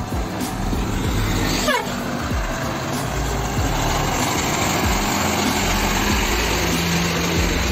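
Heavy multi-axle goods truck's diesel engine running as the truck drives slowly past close by.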